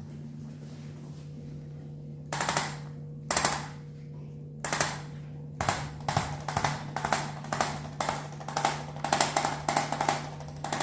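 Short bursts of rapid mechanical rattling, each dying away quickly. Four come about a second apart, then two or three a second from about six seconds in, over a steady electrical hum.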